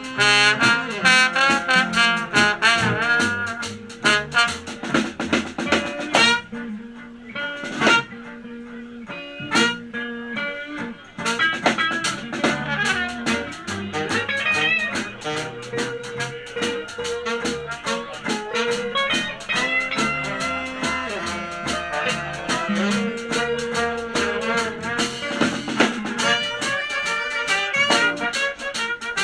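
Live swing band with saxophone, trombone, trumpet and guitar playing a jazz-blues instrumental. The full band plays loudly for the first few seconds, drops to a quieter, sparser passage, then builds again with long held horn notes.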